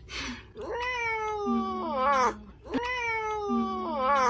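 Mackerel tabby cat yawning out loud: two long, drawn-out cries, each falling in pitch and wavering at the end.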